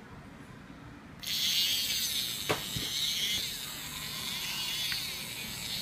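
Small electric gear motor of a homemade Theo Jansen walker switching on about a second in and buzzing steadily as it drives the wooden legs, its whine wavering up and down in pitch. A single sharp click from the linkage comes a moment later.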